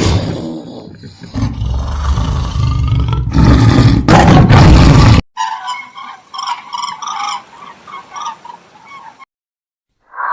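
Animal calls spliced together: first a loud, rough, low roar-like call lasting about five seconds that cuts off abruptly, then a few seconds of quieter, repeated high chirping calls.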